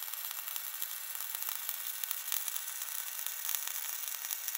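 MIG welding arc of a Hitbox SYN-MIG200PRO inverter welder running gasless flux-cored wire, crackling steadily.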